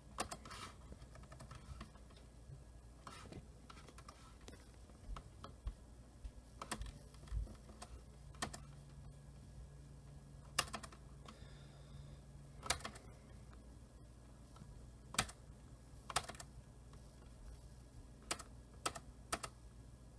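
Scattered key presses on a computer keyboard: single clicks and short clusters, irregular, every second or two, over a low steady hum.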